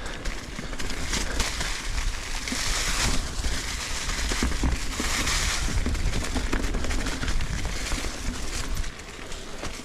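Full-suspension mountain bike being ridden fast down a dirt trail: wind rumbling on the microphone, tyres crunching and crackling over dirt and stones and the bike rattling, with two louder hissing rushes of tyre noise about three and five seconds in.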